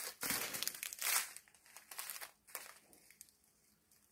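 Small zip-top plastic bag of resin diamond painting drills crinkling as it is squeezed and turned in the hand, the drills shifting inside. The crinkling is loudest in the first second or so, with a few smaller crinkles after.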